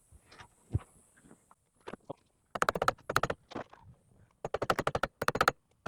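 Two quick runs of rapid ratchet-wrench clicking as the steering-wheel nut is run back onto the steering shaft, with a few softer knocks before them.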